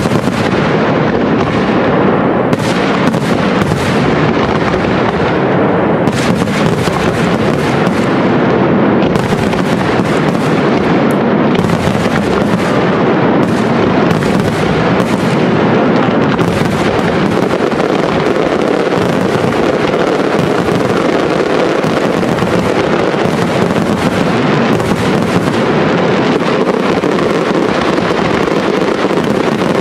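Steffes-Ollig professional aerial fireworks display: a dense, continuous barrage of overlapping shell bursts and crackle, with separate sharp bangs standing out through the first twelve seconds or so.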